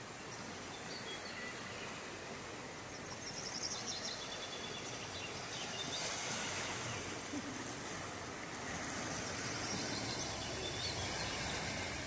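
Turbulent brown floodwater of a river over its banks, rushing with a steady hiss that grows a little louder in the second half. A few short, high bird chirps come through, about three to five seconds in and again near the end.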